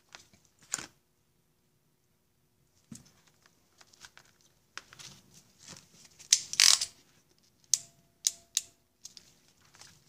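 Hands handling a wire, small metal terminals and a crimp tool on a tabletop: scattered rustles and light clicks with short pauses between them. The loudest is a rustle about six and a half seconds in, followed by three sharp clicks.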